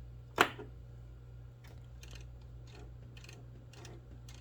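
Small plastic clicks from a Lego Technic model's winch mechanism being worked in its slow gear. There is one sharp click about half a second in, then faint ticks about two a second over a steady low hum.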